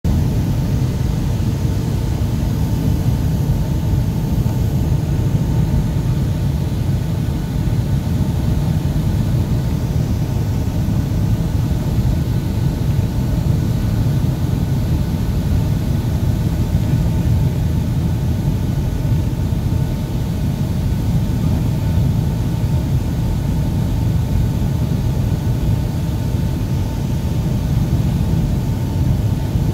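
Jet airliner cabin noise on landing approach, heard from inside the cabin: a steady low rumble of the turbofan engines and airflow, with a faint steady hum in the upper range.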